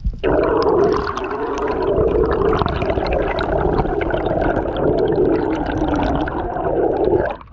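Underwater sound picked up by a camera in its waterproof housing: a steady, muffled rushing with many small crackles. It cuts off abruptly near the end.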